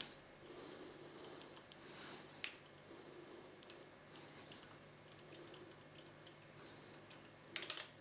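Light metallic clicks and ticks of a lock pick and tension wrench working the rotating pins of a Medeco Original six-pin cylinder. The clicks are scattered, with a sharper one about two and a half seconds in and a quick run of clicks near the end.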